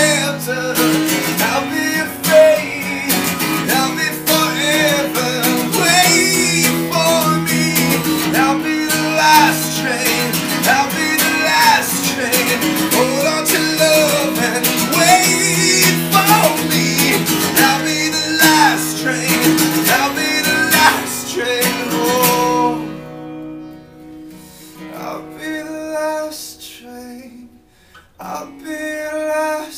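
Acoustic guitar strummed hard with a man singing over it in a solo live performance. About 22 seconds in, it drops to quiet, sparse guitar notes.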